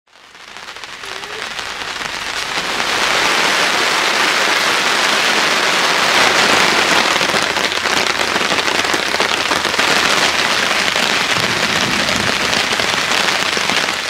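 Heavy summer downpour: dense, steady rain falling hard, fading in over the first few seconds.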